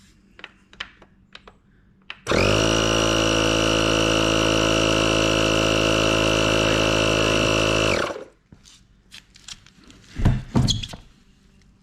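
Small electric air compressor starting about two seconds in and running steadily for about six seconds, pumping up a car tyre by about a psi, then switching off abruptly. Clicks and knocks from handling the air chuck and tyre gauge before and after.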